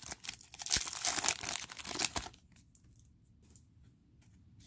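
Foil trading-card pack crinkling and tearing as it is ripped open, for about two seconds. After that only a few faint clicks of the cards being handled.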